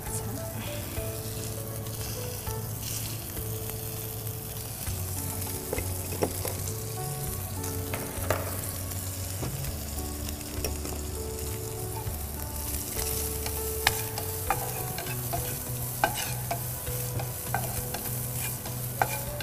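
Pre-boiled chicken pieces frying in butter in a frying pan, sizzling steadily, while a wooden spatula stirs them and now and then ticks against the pan.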